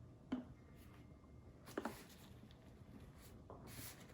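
Quiet handling noises in a small room: a light click early on, a brief sharp tap a little before two seconds in, and a short soft hiss near the end.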